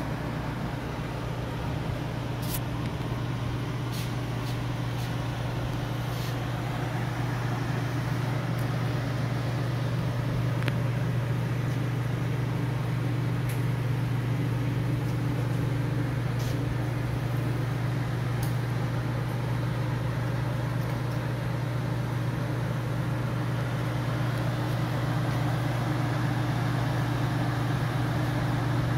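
Lincoln conveyor pizza oven running: a steady low hum of its fans and motors, with a few faint ticks.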